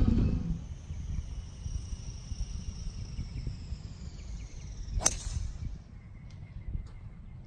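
A single sharp crack of a driver striking a golf ball off the tee, about five seconds in, over a low background rumble.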